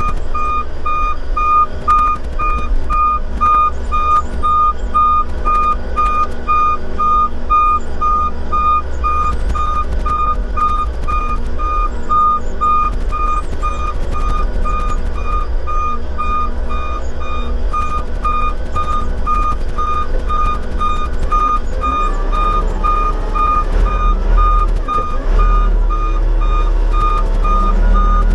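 A heavy machine's back-up alarm beeping fast and evenly over the steady low running of its engine. The engine grows louder near the end.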